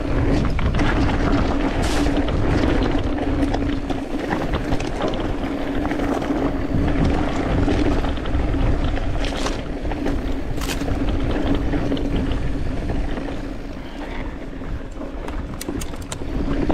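Commencal Meta TR 29 mountain bike riding down a rocky dirt trail: knobby tyres rumbling over dirt and stones, with wind rushing over the microphone and a steady hum. A few sharp rattles of the bike over rocks stand out, about two seconds in and twice around ten seconds.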